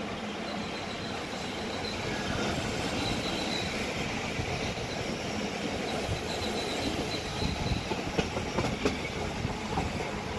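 Rhaetian Railway narrow-gauge train running on its rails, a steady rumble and rush of wheels and carriage. A faint high wheel squeal comes and goes, and a run of clicks from rail joints comes near the end.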